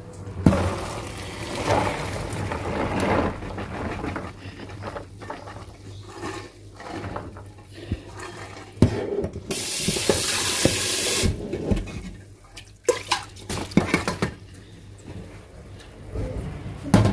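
Hot water and parboiled beans poured from a pressure cooker into a plastic colander in a stainless steel sink, draining off the first boiling water. Water splashes and runs down the drain, with knocks of the pot and colander and a louder rush of water for about two seconds near the middle.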